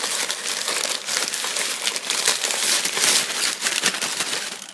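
Packaging crinkling continuously, with many small crackles, as a boxed fire alarm device is unwrapped by hand.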